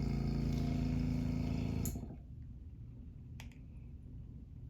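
A small electric motor runs steadily with rushing air for about two seconds, then cuts off abruptly; a couple of faint clicks follow.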